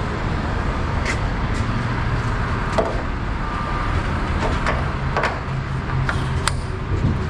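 Diesel semi-truck engines idling at a fuel island: a steady low drone, with a few light clicks scattered through it.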